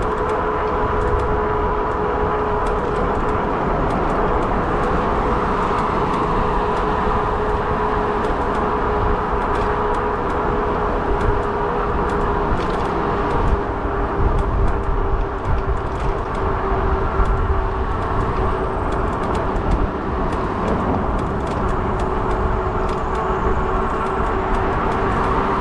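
Fat-tire e-bike riding along a road: a steady whine from the bike, with its pitch easing slightly lower, over a low wind rumble on the microphone and scattered light ticks.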